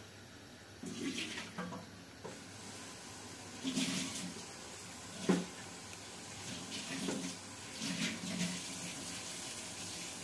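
Cold water splashing onto a dry bread-kadayıf loaf in several short spurts to moisten it before the syrup, with one sharp knock about five seconds in.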